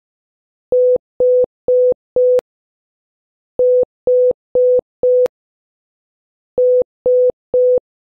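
Morse code tone near 500 Hz sounding the letter H, four short dits ('dit-dit-dit-dit'), sent three times at slow practice speed. Each group of four beeps ends with a faint click.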